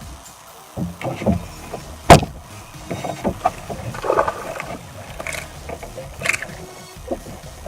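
Irregular knocks and clunks, the loudest a sharp knock about two seconds in.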